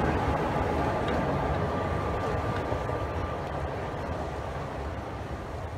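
Vintage Sóller electric tram and its open trailer cars running along the street rails, a steady rumble that slowly fades as the tram moves away, with a thin steady whine dying out about halfway through.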